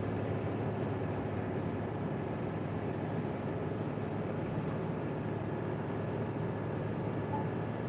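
Steady low drone of a semi-truck's diesel engine and tyre noise, heard from inside the cab at highway speed on a downhill run.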